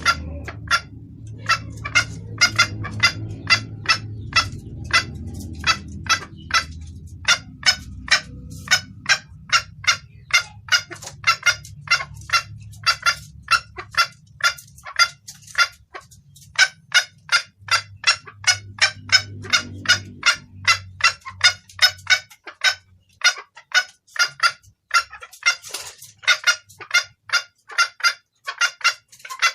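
Female junglefowl clucking in a fast, steady series of short, sharp notes, about two to three a second: the hen's call used as a lure to draw in males. A low rumble runs underneath for much of the first half and again briefly later.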